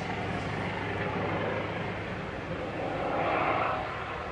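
Steady low drone of a distant engine, with a swell in the hum about three seconds in.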